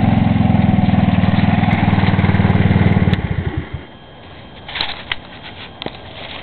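150cc GY6 scooter's four-stroke single-cylinder engine running steadily through an aftermarket header exhaust, then shut off about three seconds in, its firing slowing over under a second before it stops. A few light clicks follow.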